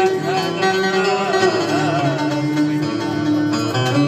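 Live Middle Eastern folk music: plucked string instruments accompanying a wavering melody line with heavy vibrato.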